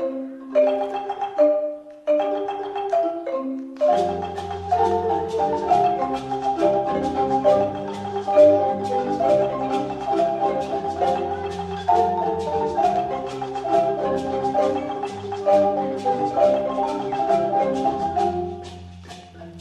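A marimba ensemble of several wooden marimbas struck with mallets. A sparse melodic phrase with short gaps comes first. About four seconds in, the full group joins with low bass notes in a dense, steady interlocking pattern, which grows quieter near the end.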